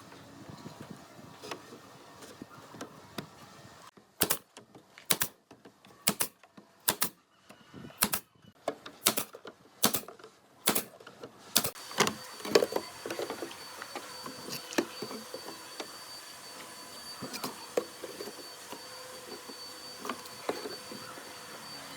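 About a dozen sharp knocks come roughly a second apart, typical of woodworking tools at work on wood. They are followed by a steady high-pitched whine with occasional clicks.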